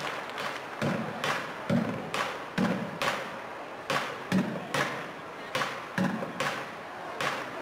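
Bucket drumming: drumsticks beating upturned plastic paint buckets, each stroke a deep hollow thud with a sharp stick crack, about two strokes a second in short phrases. It starts about a second in, as the applause before it fades out.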